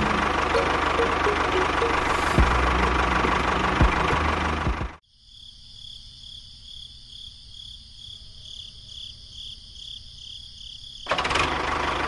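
Tractor engine running with a steady low rumble and knocks. It cuts off abruptly about five seconds in. A quieter stretch follows with a pulsing high chirp, and the engine sound comes back near the end.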